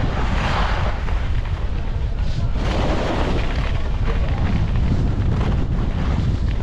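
Wind buffeting the microphone of a skier's camera during a descent, a heavy steady rumble, with the hiss of skis scraping over the artificial snow swelling twice, about half a second and three seconds in.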